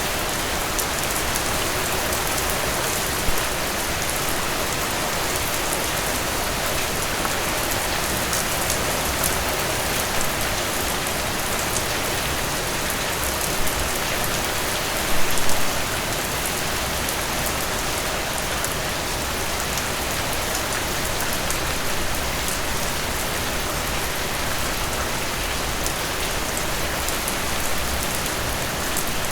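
Steady rain falling, with fine drop ticks and a few louder drips or splashes, the largest about halfway through.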